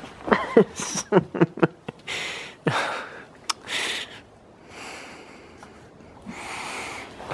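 Goats snuffling and breathing hard close to the microphone while eating from a hand, in several breathy hissing bursts. These follow a quick run of short, squeaky cries that fall in pitch in the first two seconds.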